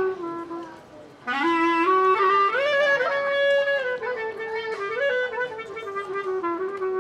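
A clarinet played solo in a winding melody, sliding between notes. It fades briefly about a second in and comes back with an upward scoop.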